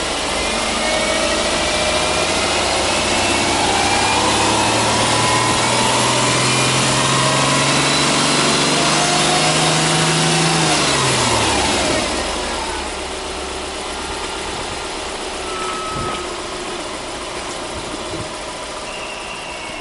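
Subaru Impreza 1.5's 1.5-litre horizontally opposed four-cylinder engine free-revving with the car standing: held at raised revs that creep slowly upward, then released about eleven seconds in, dropping quickly back to a steady idle.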